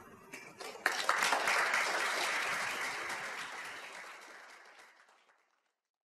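Audience applauding. It starts about a second in and dies away near the end.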